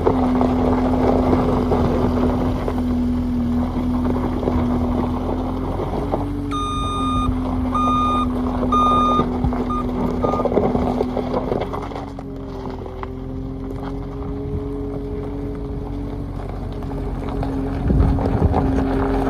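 New Holland L220 skid steer's diesel engine running steadily, with a string of backup-alarm beeps about a third of the way in as the machine reverses. About two-thirds in, the engine note drops a little and settles, and a low thump comes near the end.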